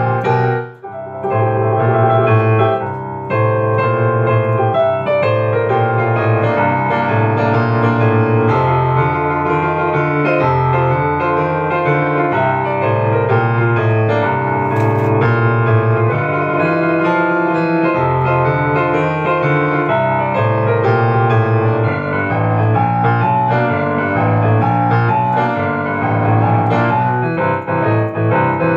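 Upright piano played two-handed, with a strong, steady bass line under chords, and a brief break just under a second in.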